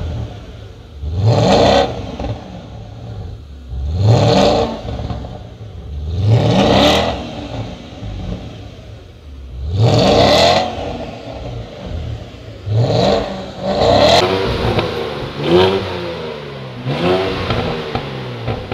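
Porsche Panamera 4S engine, parked, revved repeatedly from idle: about eight quick throttle blips, each rising sharply and falling back to idle, the later ones coming closer together.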